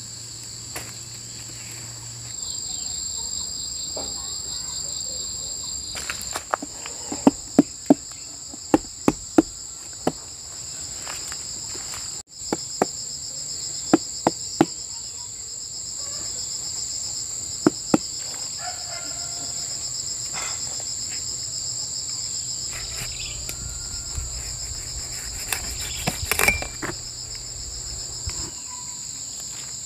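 Insects chirring in a steady high drone, with sharp taps and knocks from hands working on or around jackfruit. The knocks come several in quick succession about seven to ten seconds in and a few more later.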